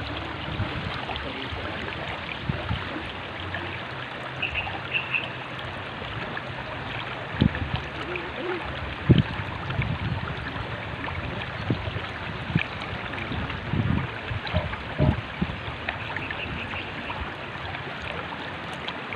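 River water flowing over rocks, a steady rushing with scattered brief low thumps and gurgles.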